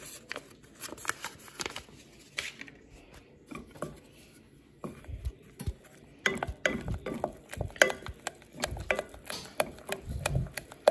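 A wooden spatula stirring and knocking against a stainless steel saucepan as cheese powder is mixed into a thin milk sauce. A few light taps at first while the packet is emptied, then from about halfway through quick, irregular knocks and scrapes with dull thuds.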